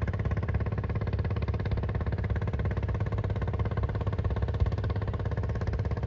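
An engine running steadily at one even speed: a low hum with a fast, regular pulse that does not change.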